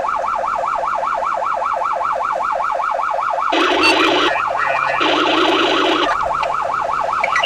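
Electronic emergency-vehicle siren on the fast yelp setting, warbling about five times a second, with two horn blasts of about a second each midway through while the vehicle runs to a working fire.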